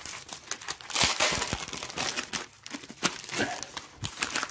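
A yellow padded plastic mailer and bubble wrap crinkling as they are handled and pulled open by hand, in irregular crackles.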